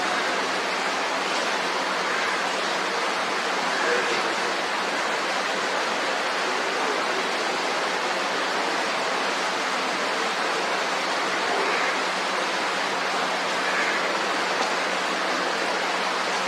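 A steady, even rushing noise that holds at the same level throughout, with no distinct events.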